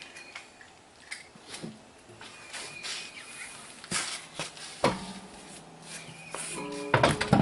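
Clinks and knocks of a wheel and lug nuts being handled, then an impact wrench fitted with a torque stick starts up with a steady whir about five seconds in and gets much louder near the end as it runs the lug nuts on.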